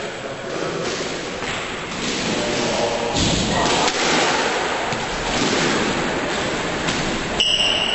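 Squash ball thudding against the court walls and rackets a few times, over a steady rushing noise.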